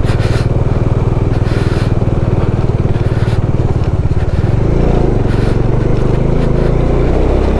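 Bajaj Dominar 400's single-cylinder engine running steadily as the motorcycle rides along under way.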